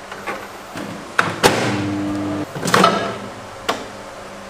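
Countertop microwave oven being used to melt butter: the door clicks shut, the oven hums steadily for about a second, and the door latch clicks open again. A glass bowl is handled inside.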